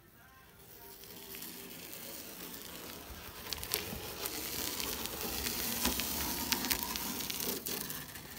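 A wooden strip scraping and rubbing along the sheet-metal edge of a GAZelle hood while smoothing a bead of seam sealer: a steady rasping hiss with scattered clicks, building up after the first second.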